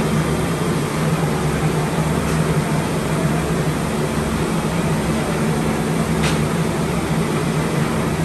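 A batch of potato fries sizzling and bubbling hard in a large commercial open deep-fry tank, stirred with a wire skimmer, over a steady low mechanical hum. A single light knock about six seconds in.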